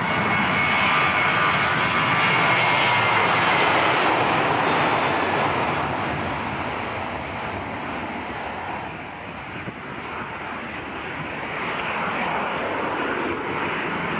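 Boeing 737-800's CFM56-7B turbofan engines at takeoff thrust as the jet rolls down the runway, rotates and lifts off. A high fan whine rides over the engine noise in the first few seconds; the sound is loudest about three to five seconds in, eases around nine seconds, then builds again near the end.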